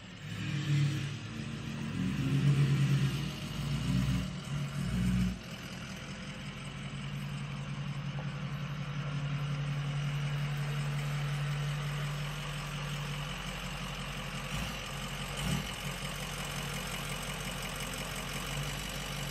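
Ford F-350's Power Stroke diesel V8 revving hard in uneven surges for about five seconds, then idling steadily with a constant low drone for the rest.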